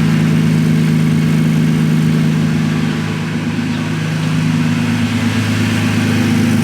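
Toyota Tacoma pickup engine idling steadily through its exhaust, with a deep, even exhaust note. The note dips briefly and settles slightly different about three to four seconds in.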